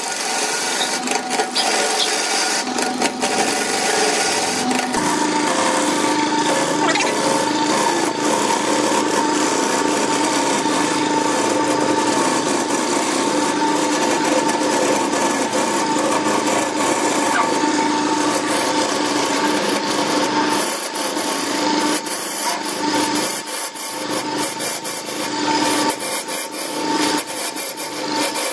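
A gouge cutting a glued-up wooden blank spinning on a Burt wood lathe: a continuous scraping, shaving noise as the tool peels wood off the turning disc. A steady hum comes in about five seconds in.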